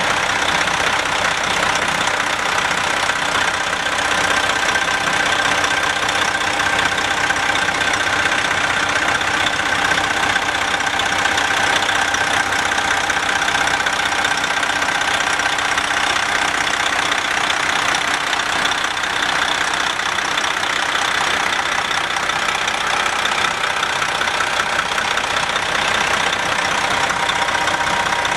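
Detroit Diesel Series 60 12.7-litre inline-six diesel engine of a Freightliner ST120 semi truck idling steadily.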